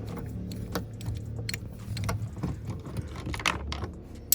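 Irregular light metallic clicks and rattles of a screwdriver with a Torx bit and loose trim screws being handled, over low handling rumble, with one sharp loud click near the end.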